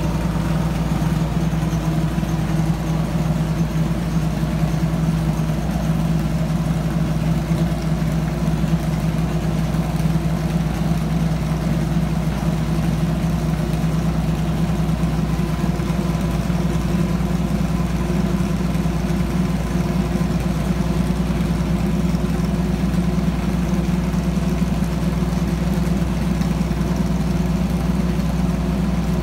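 Corvette C7.R race car's 5.5-litre V8 idling steadily.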